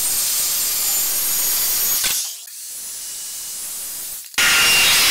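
Handheld circular saws cutting through plywood, a loud steady whine and rasp of the blade in the wood. It drops in level about two seconds in, then jumps back abruptly, loud again, a little past four seconds.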